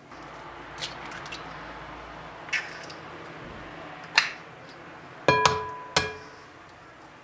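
Kitchenware being handled: a few sharp knocks and clicks, then near the end two loud clinks that ring on briefly with a clear pitch, like glass or ceramic being struck.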